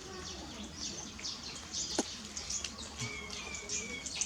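Small birds chirping rapidly and continuously with short high notes, with one sharp click about two seconds in.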